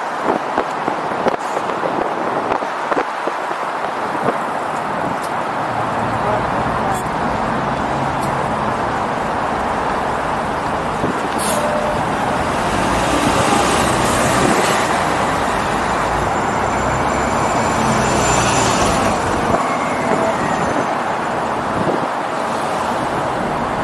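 City road traffic heard over steady wind and road noise. A motor vehicle's engine runs close by from about five seconds in, and a vehicle passes around the middle.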